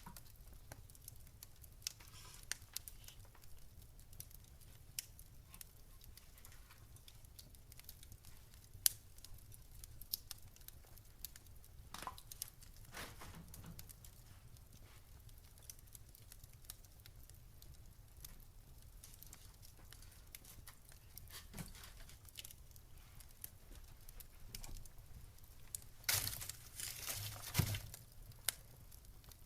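Faint scattered ticks and crackles over a low steady hum, with papery rustling a couple of times, the longest near the end, like paper being handled at a desk.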